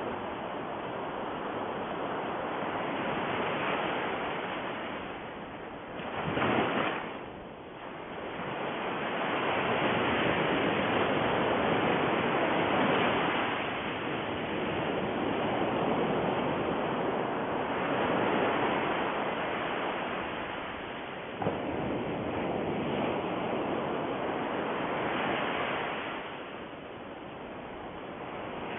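Rushing noise of ocean surf, swelling and ebbing every few seconds, with a sharper surge at about six and a half seconds.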